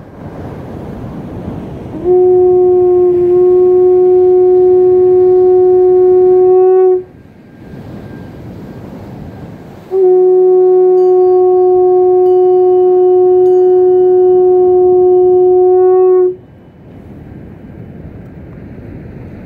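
A horn blown by mouth: two long, steady blasts at one pitch, each held about five seconds, with a pause between. Waves and wind on the microphone fill the gaps.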